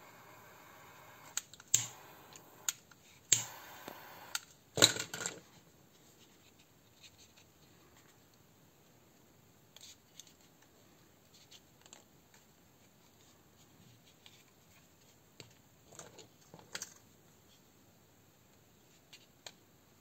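Plastic and metal parts of a Tokyo Marui M9 electric airsoft pistol being handled on a workbench mat: a run of sharp clicks and knocks, loudest about five seconds in, then a few fainter clicks.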